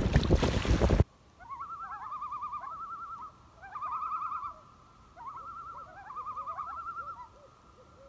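Wind buffets the microphone for about a second and cuts off suddenly. Then common loons give their quavering tremolo calls in four bursts, each opening with a rising note and breaking into a fast, wavering trill. The calls sometimes overlap.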